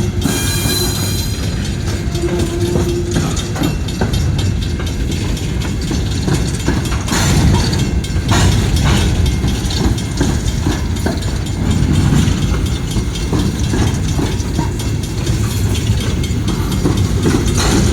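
A train rolling past at close range: a steady rumble of the cars, with the wheels clicking and clacking over the rail joints throughout.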